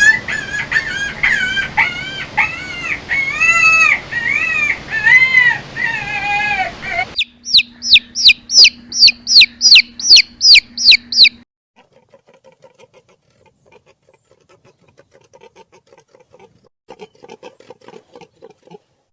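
Chickens calling: a run of short, loud, arched clucks over a noisy yard. Then a quick string of high, sharp falling calls, about three a second. After that the sound drops to faint soft ticks.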